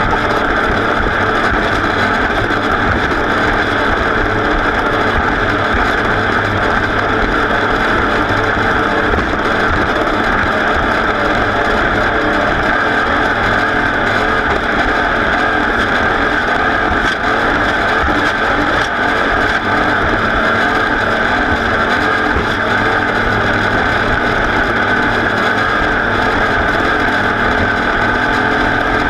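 Off-road race vehicle's engine running hard and steadily at racing speed, a loud continuous din with no letup.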